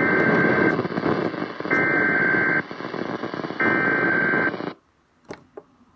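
Weather radio alert data header: three bursts of two-tone digital warbling, each just under a second long and about a second apart, over loud radio static hiss. This is the coded SAME header that tells receivers an alert is being broadcast. The hiss cuts off abruptly about three-quarters of the way through, leaving near silence with a few faint clicks.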